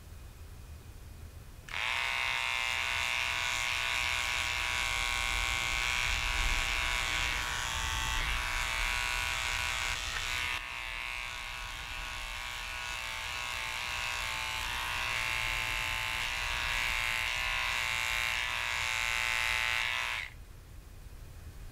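Small electric pet clipper buzzing steadily as it trims the fur between a dog's paw pads. It switches on about two seconds in, dips slightly in level about halfway through, and switches off shortly before the end.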